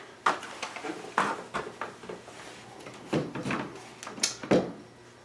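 Objects being picked up and set down while clutter is cleared off a work surface: a string of separate knocks and clicks with some rustling between them, the sharpest a few tenths of a second in, about a second in, around three seconds and twice near four and a half seconds.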